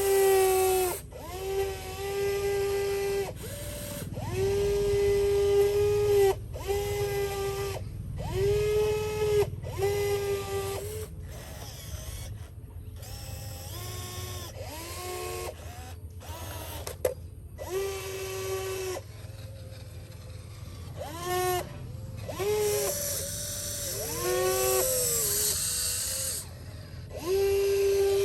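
Small electric motors whining in short stop-start runs, each run rising quickly to a steady pitch, over a low steady hum.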